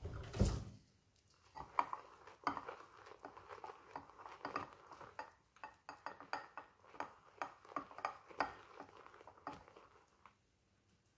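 A thump about half a second in, then a badger shaving brush worked round a ceramic lathering bowl to build lather: wet rubbing with many quick clicks of the brush against the bowl, stopping shortly before the end.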